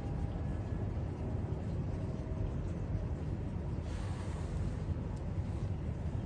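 Steady low background rumble, with a brief soft rustle about four seconds in and a faint click a second later.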